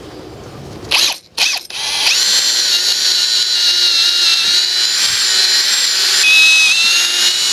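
Power drill boring pivot holes through the 2x4 legs of a wooden stand: two short blips about a second in, then a steady high-pitched whine from about two seconds on, its pitch shifting slightly near the end.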